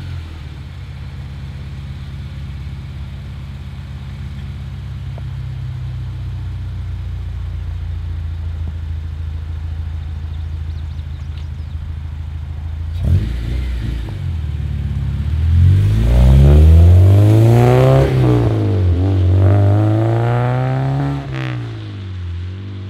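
Honda Civic Si's four-cylinder engine idling steadily, then revved about three times well past halfway through, rising and falling in pitch, before settling back to idle.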